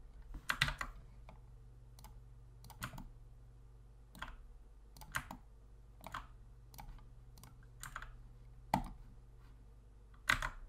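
Computer mouse and keyboard clicks, scattered about once a second and sometimes in quick pairs, the loudest just after the start and near the end, over a steady low hum.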